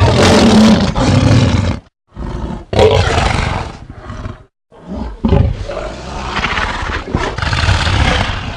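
Three creature roar sound effects in a row, each a rough, growling roar; the first lasts under two seconds and the last, about four seconds, is the longest.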